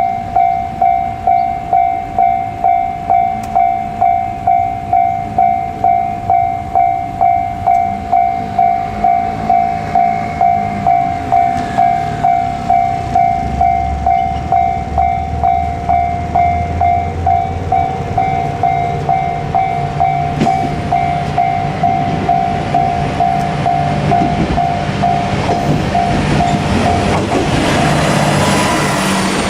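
Japanese level-crossing alarm ringing its repeating 'kan-kan' tone a little under twice a second, while a JR Kyushu KiHa 47 diesel railcar approaches. The railcar's engine comes in about halfway through, and the train passes close by near the end, its rumble rising over the bell.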